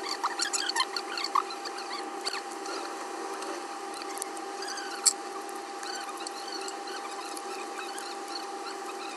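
Small clicks, taps and short squeaky scrapes of hand tools working on a phone, thickest in the first couple of seconds, with one sharp click about five seconds in. A steady hum runs underneath.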